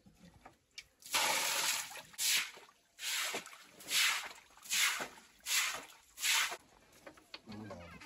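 Seven wet swishing strokes in a steady rhythm, a little under a second apart, after a quiet first second: a wet concrete pig-pen floor being cleaned with water.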